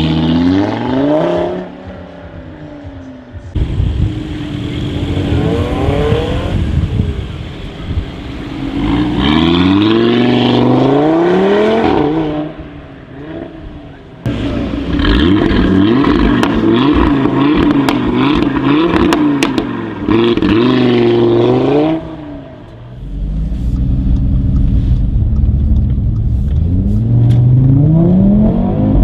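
Audi RS3 8V's turbocharged 2.5-litre five-cylinder engine revving and accelerating hard several times over, its pitch climbing and dropping repeatedly, with a few sharp exhaust crackles around the middle.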